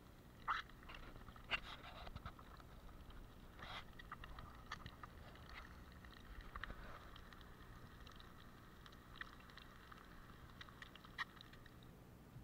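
Faint crackling from an egg frying in a small pan over charcoal embers: scattered sharp pops and spits over a light sizzle, thickest around the middle.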